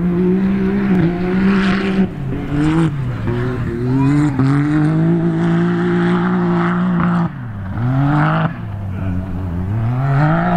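A UTV side-by-side's race engine running hard on a dirt course. Its pitch climbs and drops again and again as the driver accelerates and backs off, dipping sharply a few times.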